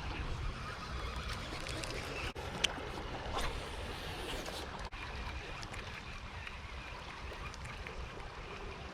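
Steady wind rumble on the microphone over rushing aqueduct water, with a short sharp click about two and a half seconds in.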